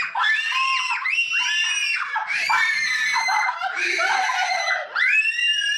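A dog's high-pitched, screaming yowls: a string of long cries, each rising and falling in pitch, with short breaks between them.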